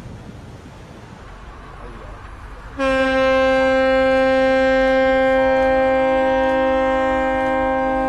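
A ship's horn sounds one long, steady, loud blast starting about three seconds in, with a second, higher tone joining midway. Before it, a rushing noise of water and wind.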